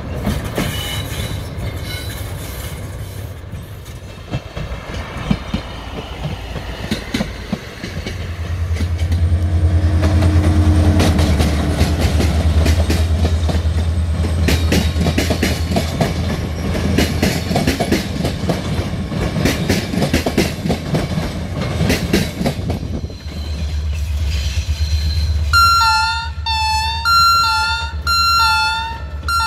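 Diesel locomotives hauling passenger coaches past on jointed track: a deep engine rumble with the wheels clicking over rail joints. Near the end a run of short, repeated high tones starts up.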